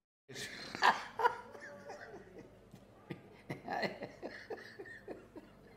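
Two men laughing: a loud burst about a second in, then softer chuckling with another short burst later.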